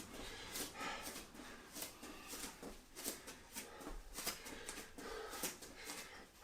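Faint, rhythmic sounds of a person doing low side steps: short noisy strokes, about three every two seconds.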